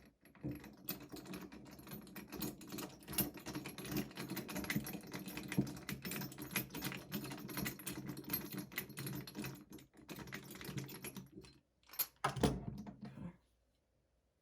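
Rapid, irregular clicking and rattling of a hand tool working against a Glock 20 pistol slide while the front sight screw is unscrewed, then a louder clatter about twelve seconds in before it goes quiet.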